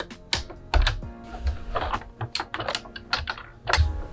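Plastic Lego bricks clicking and clattering as the valve cover assembly is prised and lifted off a brick-built model engine, over background music.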